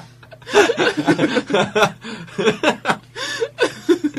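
People laughing and chuckling in several short bursts.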